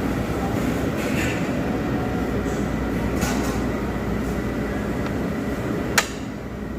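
Steady rumbling din of a busy buffet restaurant, with a single sharp clink about six seconds in.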